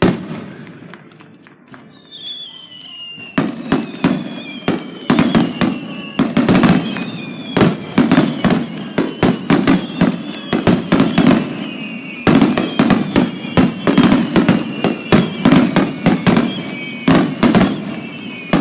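Fireworks display: aerial shells bursting. A single loud bang comes first, then from about three seconds in a rapid barrage of explosions, several a second, that keeps going.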